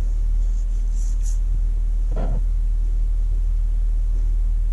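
Steady low rumble with no clear pitch, with one short faint sound about two seconds in.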